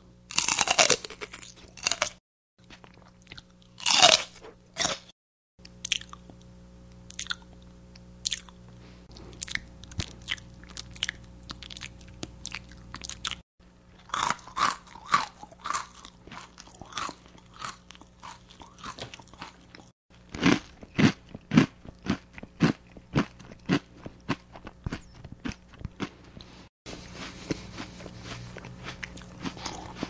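Foley recordings of a person eating crunchy food, played as a series of separate takes: crisp bites and chewing crunches, with a stretch of loud crunches about two a second past the middle. Two louder sweeping mouth sounds come in the first few seconds, and a steady hiss is heard near the end.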